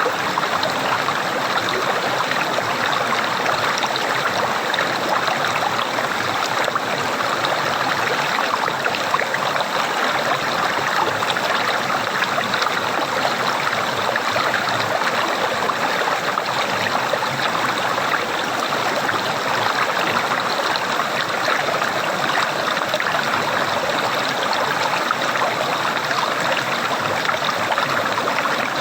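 Running water gurgling steadily, an even flow with no pauses or changes.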